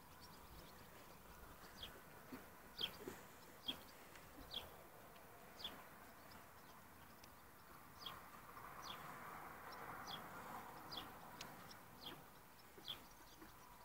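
Faint bird chirping: short, high, falling chirps repeated roughly once a second over a quiet outdoor background.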